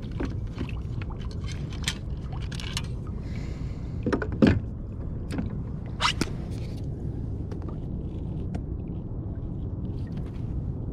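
Steady low rumble with scattered knocks and clicks of fishing gear being handled in a plastic pedal kayak. The loudest is a double knock about four seconds in, and another sharp knock follows about two seconds later.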